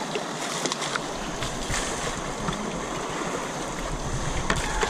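Steady rush of a shallow flowing river, with scattered short splashes of water around wading elephants.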